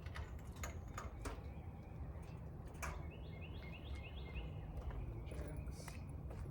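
A bird gives a short run of about five quick, slightly falling notes midway, over a steady low outdoor rumble. Several sharp clicks sound near the start and again later.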